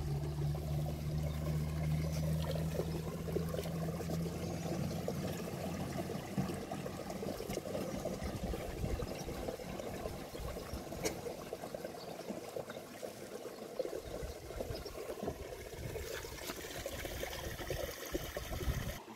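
Water pouring and trickling steadily, with a low steady hum during the first few seconds that then stops.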